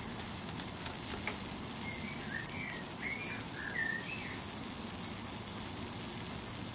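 Miniature live-steam traction engine sizzling steadily as it comes up to steam. A bird chirps a few short notes around the middle.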